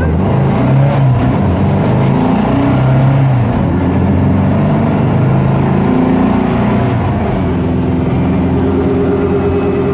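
VW Super Beetle Baja Bug's air-cooled flat-four engine, heard from inside the cabin while driving. Its pitch rises and falls several times as the car accelerates, then holds steadier near the end.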